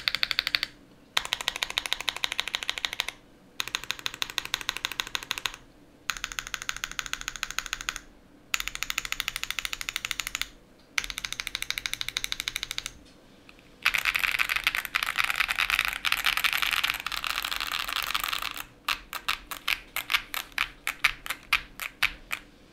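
Typing on a Wind X R2 mechanical keyboard with a polycarbonate plate, stock unlubed WS Brown tactile switches and PBT keycaps. Runs of rapid keystrokes about two seconds long with short pauses between, then a longer dense flurry, then single keys pressed about five a second near the end.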